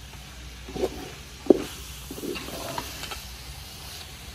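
Wooden spoon stirring kachnar chicken in a metal pot, scraping and knocking against the pot's sides, over a steady sizzle from the pan. The sharpest knock comes about one and a half seconds in, with lighter scrapes and taps after it.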